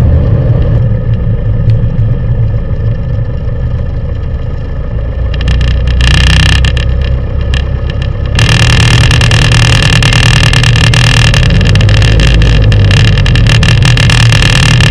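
Piper PA-28 single-engine light aircraft's piston engine running at low taxi power, heard inside the cockpit. It dips slightly around four to five seconds in, then grows louder, with more hiss, about eight seconds in.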